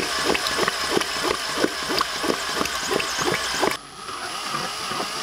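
Power drill spinning a 3D-printed screw pump in water: motor whine with water churning and splashing in a regular pulse of about four to five strokes a second. The sound drops sharply in level a little under four seconds in, then carries on more quietly.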